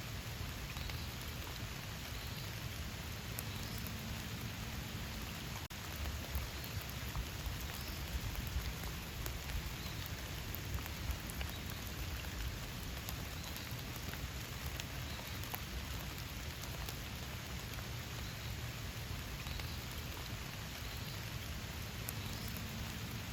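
Steady rain falling, with many separate drop hits ticking through it.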